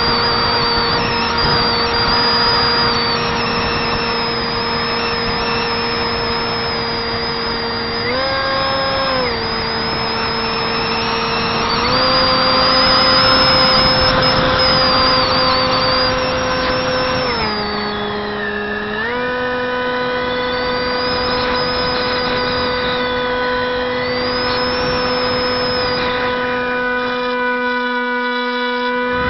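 Brushless electric motor of a Zeta Wing Wing Z-84 flying wing spinning its propeller in flight, heard from a camera mounted on the airframe, as a steady buzzing whine over wind rush. The pitch shifts with the throttle: it rises briefly about eight seconds in, steps up again a little later, and dips briefly around eighteen seconds.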